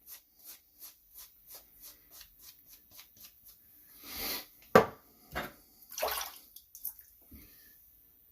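Wet, lathered shaving brush working shaving soap lather, soft strokes about three a second. Then a few louder wet, splashy sounds and a sharp knock about five seconds in.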